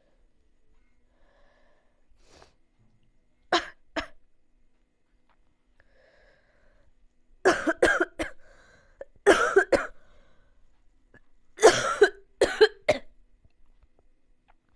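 A person coughing in fits: a pair of coughs about three seconds in, then three bouts of three or four coughs each, the last the loudest.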